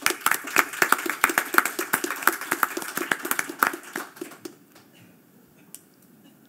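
Audience applauding, with separate claps audible, dying away about four and a half seconds in.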